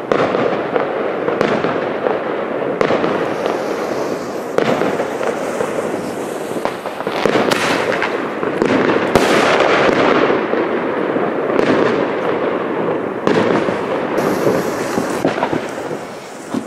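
New Year's fireworks going off without pause: a dense crackle of bursting stars, cut by sharp bangs every second or two, with a brief hiss near the end.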